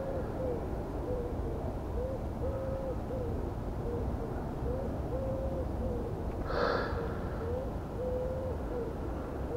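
A dove cooing a low hooting phrase over and over, with a longer note about every three seconds. A brief rustle comes about two-thirds of the way in.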